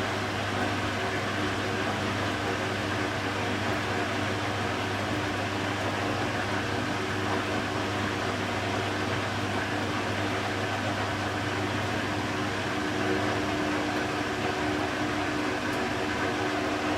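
Beko WTB841R2W washing machine running, a steady, unbroken mechanical hum with a few held tones and no pauses.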